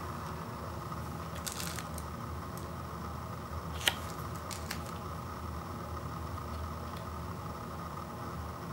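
Brief handling sounds of a sealed microwavable rice cup with a foil lid being picked up and turned in the hands: a short rustle, then a sharp click about four seconds in, the loudest sound, and a smaller click just after. A steady low hum runs underneath.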